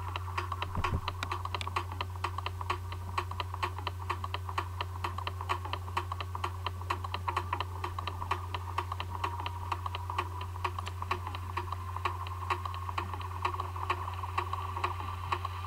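Rapid, fairly even clicking, several clicks a second, over a steady low hum.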